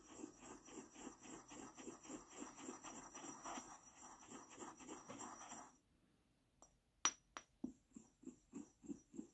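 Pestle grinding pink chalk and acrylic powder in a mortar: faint, quick, rhythmic scraping strokes, about four or five a second. They stop after nearly six seconds; after a short pause comes one sharp clack, then slower grinding strokes.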